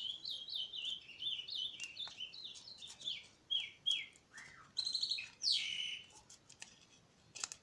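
A small bird singing: a rapid run of short chirps, about three or four a second, each sliding down in pitch, then a few louder calls around five seconds in.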